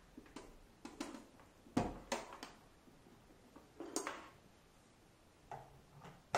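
Scattered clicks, knocks and light clatter as laboratory equipment is handled and set down on a tabletop. The loudest knock comes just under two seconds in, with more near the middle and the end.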